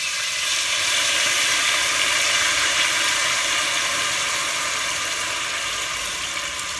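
Red wine poured into a hot stainless steel pot over a browning veal roast, sizzling and hissing as it hits the hot metal. The sizzle swells in the first couple of seconds, then slowly eases as the wine settles into a simmer.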